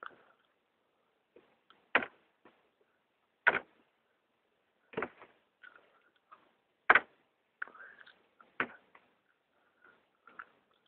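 A series of sharp knocks, five loud ones about a second and a half apart, with fainter clicks and short scuffing sounds between them.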